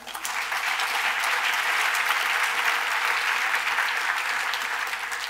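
Audience applauding: dense, steady clapping that builds quickly and eases slightly near the end.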